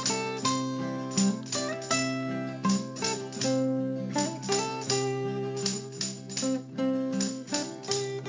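Background music of plucked guitar, with notes and chords picked in a steady rhythm.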